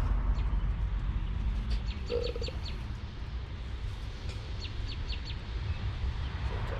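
A bird calling: two short runs of about five quick, high chirps, a few seconds apart, over a steady low background rumble.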